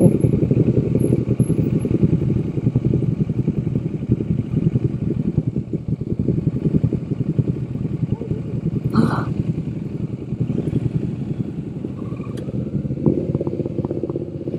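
Motorcycle engine idling steadily at a stop, with a single sharp clack about nine seconds in. The engine note rises near the end as the bike pulls away.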